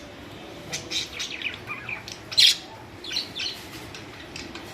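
Budgerigars chirping: a run of short, high calls through the middle, the loudest about two and a half seconds in.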